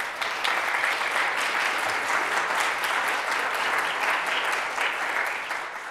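Audience applauding: a dense patter of many hands clapping that starts at once and fades out near the end.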